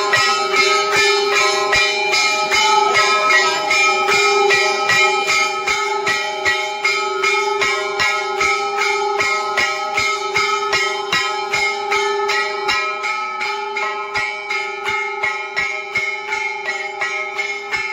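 Temple bells ringing continuously for the aarti, a sustained clangour of overlapping bell tones with a regular beat of strikes about three times a second.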